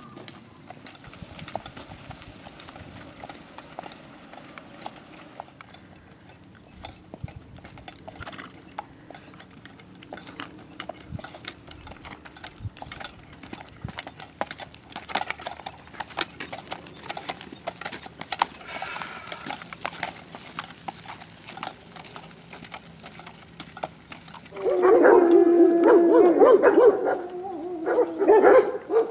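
A horse walking on a gravel and dirt track: a run of light hoof clicks and crunching steps. About 24 seconds in, a dog starts barking loudly and repeatedly, the loudest sound.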